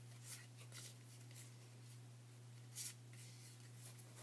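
Near silence: a steady low electrical hum, with a few faint brief rustles, the strongest nearly three seconds in.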